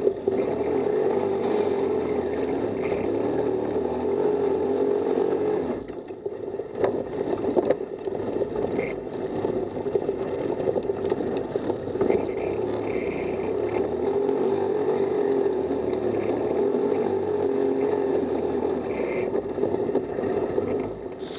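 Off-road buggy engine running steadily under way, its note dipping briefly about six seconds in, with a few sharp knocks and rattles from the rough dirt track.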